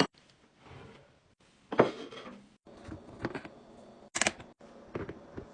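Short clicks, taps and rustles of food containers and plastic packaging being handled and set down, in several brief snippets with sudden cuts between them. A crinkly rustle comes about two seconds in, and a sharper hissy rustle just after four seconds.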